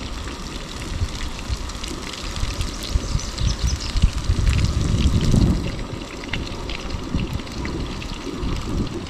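Wind rumbling on the microphone, strongest around the middle, over a faint steady hiss and light crackling as corn tortillas are laid on a griddle.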